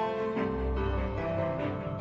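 Background music with sustained melodic notes; a low bass comes in about half a second in.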